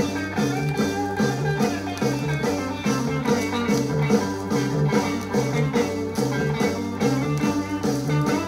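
Instrumental stretch of a psychedelic rock recording played from a vinyl record: guitar over a steady, repeating bass line and beat, with no vocals.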